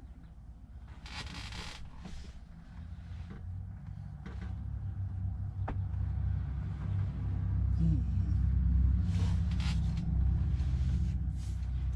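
Rustles and a sharp click of hands handling shifter parts and air lines in a truck cab, over a low rumble that grows louder from about four seconds in.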